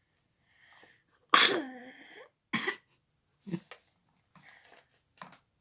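A young child sneezing. A short intake of breath comes first, then a loud sneeze about a second and a half in and a second, shorter sneeze just after. A few smaller breathy sounds follow.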